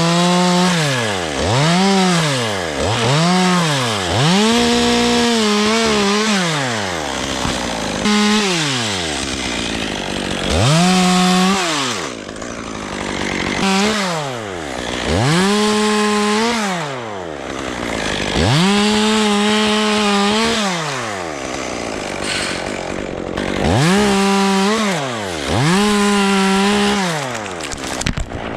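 Chainsaw cutting wood, its engine revved up and let back down about a dozen times, each time rising to full speed, holding briefly under the cut, then falling back.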